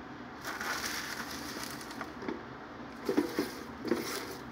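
Fresh baby spinach leaves rustling and crunching as they are handled and stuffed down into a plastic blender jar by hand, with a few soft knocks about three seconds in.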